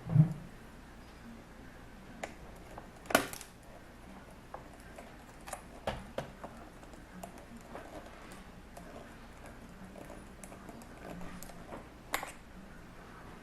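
Scattered small clicks and taps from hands working on a laptop, with a low thump at the start, a sharp click about three seconds in, smaller ticks through the middle and another sharp click near the end.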